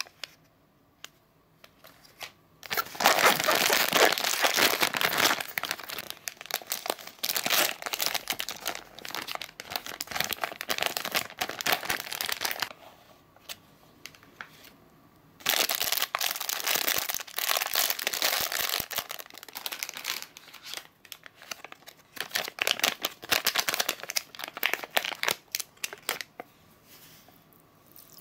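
Foil sachet and plastic packaging crinkling as they are handled and opened, in two long stretches of rapid crackle with short pauses between them.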